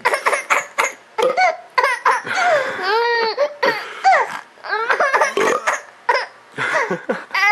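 High-pitched laughing and giggling in quick, repeated short bursts, with rising and falling pitch.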